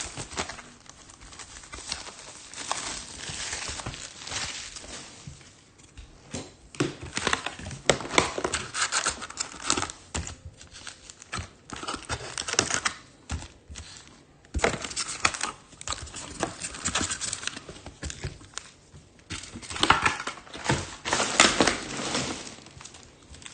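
Foil trading card pack wrappers crinkling and tearing, with cards being handled, in irregular bursts.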